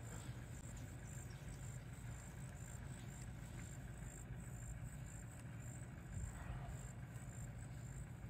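Faint outdoor ambience: an insect chirping high and thin in a steady, even rhythm over a low, constant rumble.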